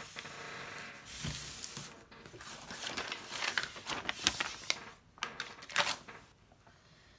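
Large custom diamond-painting canvas being handled: rustling and crackling with scattered light clicks for about five seconds, a brief flurry near the end, then quieter.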